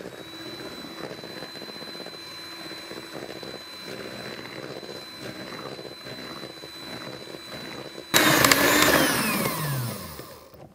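Electric hand mixer with twin beaters running steadily with a high whine, beating a runny mix of egg yolks, sugar, lemon juice and oil in a plastic bowl. About eight seconds in it turns abruptly much louder, then falls in pitch as it fades.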